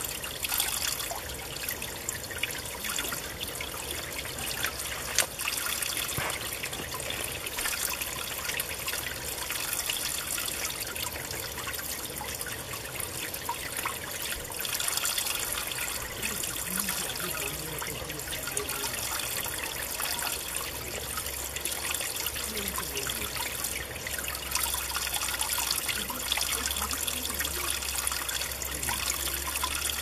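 Valley stream water flowing steadily, a continuous babble of running water with small splashy ticks throughout.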